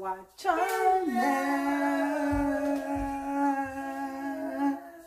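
A woman's voice singing, sliding down into one long held note that lasts nearly four seconds.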